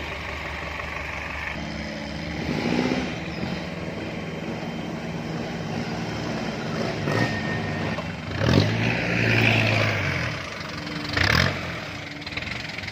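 Off-road 4x4's engine running and revving under load, with a few sharp knocks or clatters; the loudest stretch comes about eight and a half seconds in, with another knock near eleven seconds.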